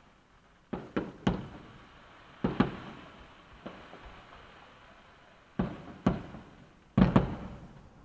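Fireworks bursting overhead, heard muffled from inside a parked car: about ten sharp bangs in quick clusters, each trailing off in an echo.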